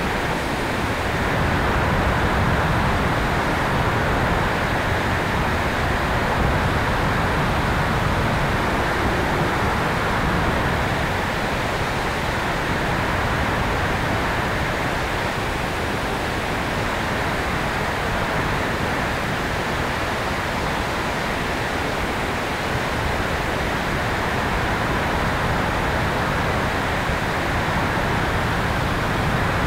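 Steady rushing airflow over the microphone of a tail-mounted camera on an electric RC airplane in flight. It is an even noise with no distinct motor whine or propeller tone.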